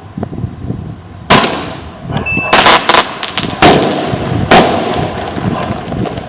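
Fogos Ouro 'Foguete Shock Maluco' firework rocket bursting: a sharp bang about a second in, a quick rattle of several bangs, then two more loud reports, each trailing off.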